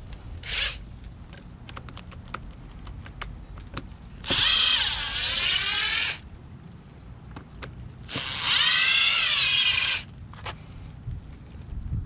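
Cordless drill run twice for about two seconds each, its motor pitch dipping under load and climbing again, with a few small knocks between runs.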